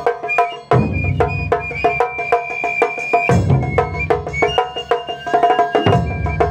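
Live Japanese taiko ensemble music: fast, dense drum and stick strikes with a repeated plucked melody and a high held note, punctuated by deep big-drum booms about every two and a half seconds.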